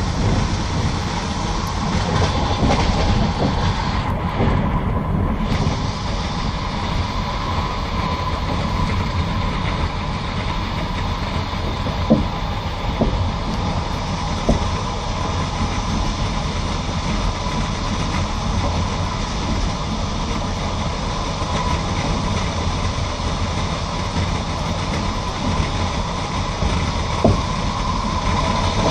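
Passenger train carriage rolling along the track, heard from inside: a steady rumble of wheels on rails with a faint steady whine and a few single sharp clicks of wheels over rail joints.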